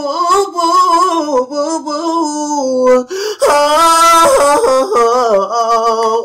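A man singing a cappella in an R&B style: wordless melismatic runs on a vowel, breaking briefly about three seconds in and going on to a higher held note with vibrato.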